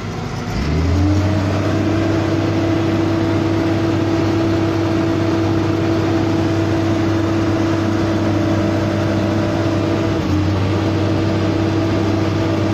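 Engine of a road-paving machine revving up about half a second in, then running steady at high revs, with a brief dip near ten seconds.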